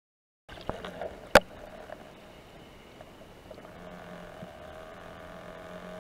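Underwater sound picked up by a spearfisher's camera: a few clicks and one sharp knock about a second in, then a steady hum with a faint tone underneath.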